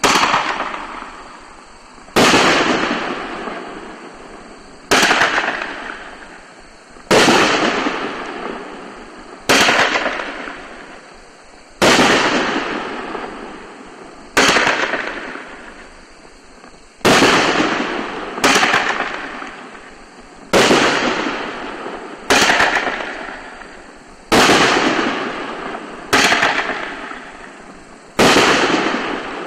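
Yin Yang P5470 consumer fireworks cake firing its aerial shots: a sharp bang about every two seconds, each fading away over a second or two before the next.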